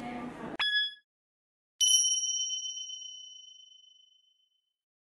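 Two edited-in chime sound effects: a short bright ding, then about a second later a clear bell-like ding that rings on and fades away over about two and a half seconds.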